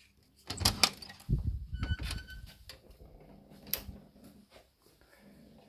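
A hotel room door being opened by its metal lever handle: sharp latch clicks, then heavy thuds and rumble as the door is pushed open, with a brief high-pitched tone about two seconds in. Quieter handling noise and a single click follow.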